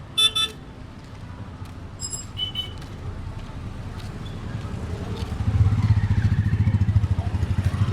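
Street traffic: a vehicle horn honks briefly right at the start, and a second, higher-pitched horn sounds about two seconds in. From about five seconds in, a vehicle engine runs loudly close by, with a fast low throb.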